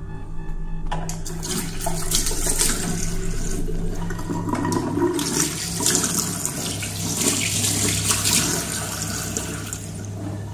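Water rushing from a flushing toilet in a tiled washroom, starting about a second in and running for several seconds, over a low steady hum.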